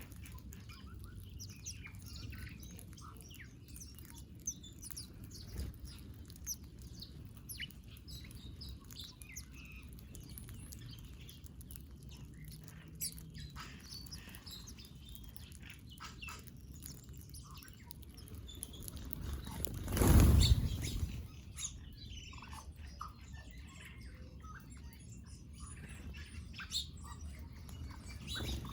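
Small birds chirping, with many short high calls overlapping all the way through. About two-thirds of the way in there is a brief, loud rush of noise lasting about a second.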